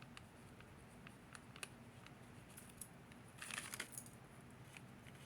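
Near silence: faint small clicks of handling, with a brief scratchy rustle about three and a half seconds in, over a low steady hum.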